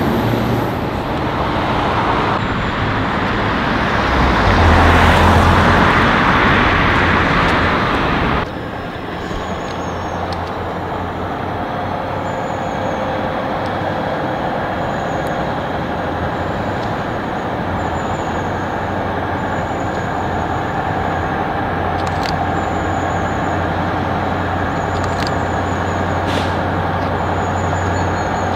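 Road noise from the towed Ikarus 435 bus and passing traffic, loudest around five seconds in, then, from about eight seconds in, a Tatra 815 truck's diesel engine running steadily as it tows the bus at low speed, with a few sharp clicks.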